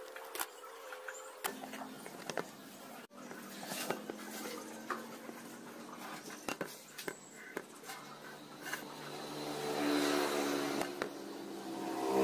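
Light taps and clicks of hands handling a masking-taped square metal bar, over a steady low hum that swells and grows louder near the end.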